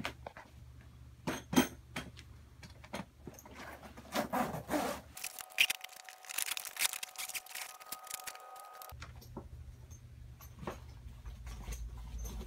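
Grow tent's fabric cover with reflective lining being pulled and fitted over its pole frame: rustling and crinkling, with scattered knocks and clicks.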